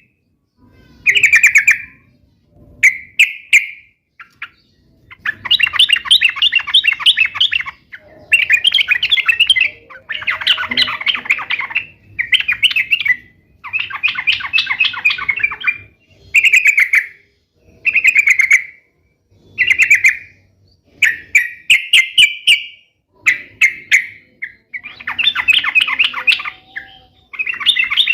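Trucukan bulbul singing: a long run of short, loud chattering phrases of rapid notes, each about half a second to two seconds long, with brief pauses between them.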